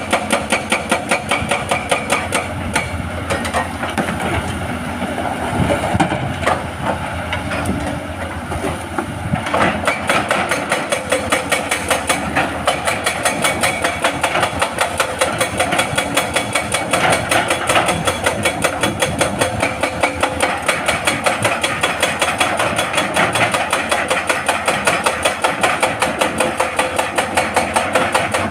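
Hydraulic breaker on a Hitachi excavator hammering rock in a fast, steady rhythm of about four blows a second, over the excavator's running diesel engine. The blows are softer for a few seconds near the start, then come back at full strength.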